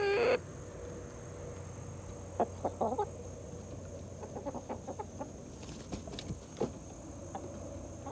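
Chickens clucking in short, scattered calls. The loudest call comes right at the start, and a few more come in a cluster about two and a half to three seconds in.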